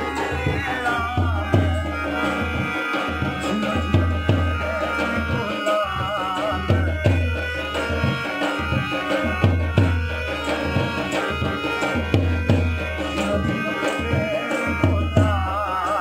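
Live Rajasthani folk music for a dance: a large two-headed dhol drum beats a steady, driving rhythm under a wavering melody line.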